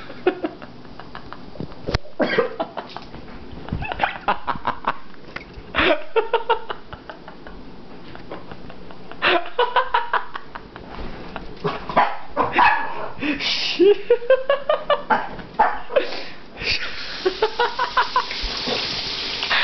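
A man gagging and retching after failing to keep down a shot of liquor, with people laughing hard around him in quick bursts. In the last few seconds a tap runs into a sink.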